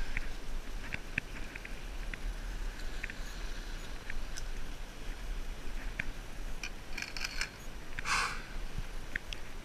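Steady wash of the sea and wind over a rocky shore, with scattered light clicks and taps as fishing gear and a freshly landed fish in a landing net are handled on the rocks, and a short rushing noise about eight seconds in.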